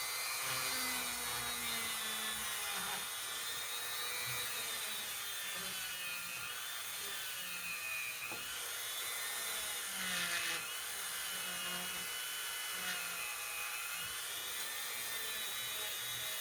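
A small electric rotary tool running with a polishing nub against the edges of a chromatic harmonica slide's screw slits. It makes a high whine that wavers up and down in pitch as the tool is pressed and eased on the metal.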